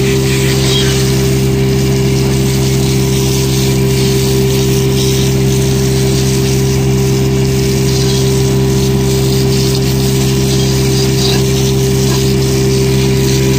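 A garden hose spraying water onto a chrome-plated steel hubcap and the wet pavement beneath it, a hiss under a louder steady mechanical hum that does not change throughout.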